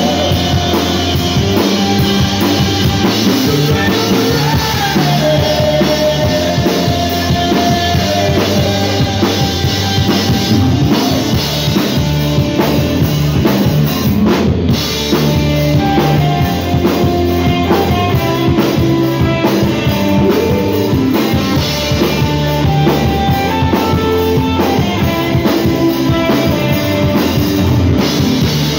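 Live rock band playing: electric guitars over a full drum kit.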